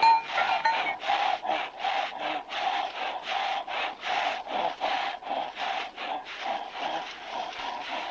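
A rhythmic rasping creak, about four strokes a second, each stroke carrying a steady squealing tone.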